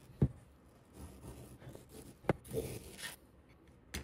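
Metal scraper working a resin 3D-printed mold half off a metal build plate: three sharp clicks spread over the few seconds, and a brief scrape just after the middle one.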